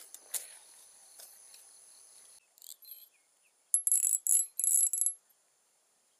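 Ajiking Wahoo Mini spinning reel's drag knob being tightened: a quick run of sharp clicks that starts almost four seconds in and lasts about a second and a half. Before it, crickets trill steadily and the fish rustles in the grass.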